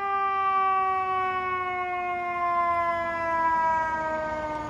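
Fire engine's mechanical siren winding down, its wail falling slowly and steadily in pitch.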